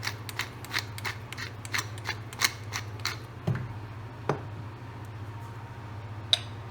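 Pepper mill being twisted: a rhythmic run of grinding clicks, about three a second, for the first three seconds, then a few scattered knocks and a light clink near the end. A steady low hum runs underneath.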